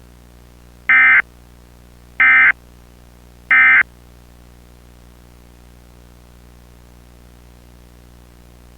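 Emergency Alert System end-of-message (EOM) signal: three identical short bursts of shrill digital data tones about a second and a half apart, closing the alert. A faint steady hum runs underneath.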